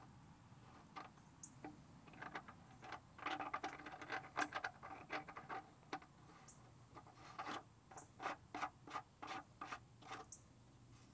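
Fingers handling the Femco oil drain plug fitting under a truck's oil pan: irregular small clicks, scrapes and rubbing, busiest a few seconds in and again near the end.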